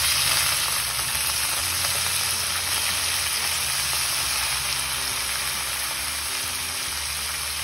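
Wet brinjal strips, straight from salted water, sizzling in hot oil in a frying pan: a steady hissing sizzle that eases a little toward the end.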